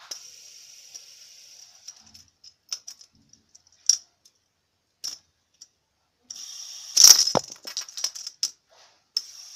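Hands fiddling with a metal fidget spinner close to the microphone: scattered clicks and small metallic rattles, with a loud burst of knocks and rattling about seven seconds in, over a faint hiss.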